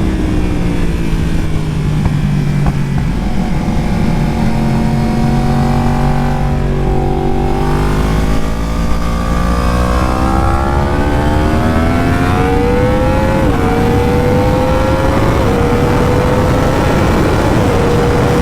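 Yamaha R1 sport bike's inline-four engine heard onboard on a wet track: the revs fall as it slows, hold low for a few seconds, then climb hard through the gears, with three quick upshifts near the end. A steady rush of wind and road noise lies under the engine.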